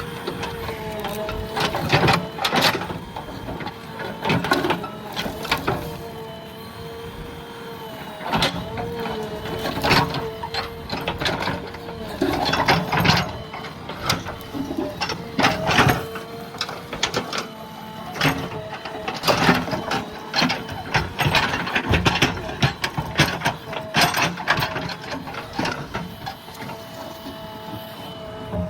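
JCB backhoe loader's diesel engine running with a steady whine that wavers slightly in pitch, under repeated irregular knocks and crunches of the bucket working soil and brush.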